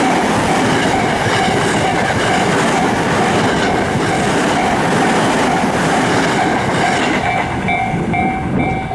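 Electric commuter train running past over a level crossing, its wheels clattering over the rail joints. The crossing's warning bell rings steadily throughout and comes through clearly near the end as the train noise falls away.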